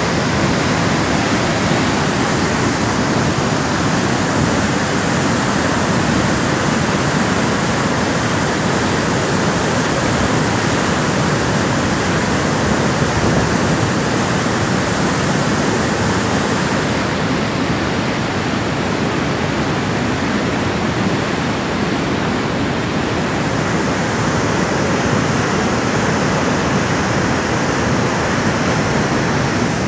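Muddy flash-flood torrent rushing past in a loud, steady, continuous roar of churning water.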